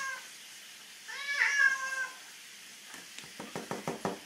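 Calico cat meowing while being bathed: the tail of one drawn-out meow right at the start, then another long meow about a second in. Near the end, a quick run of short clicks.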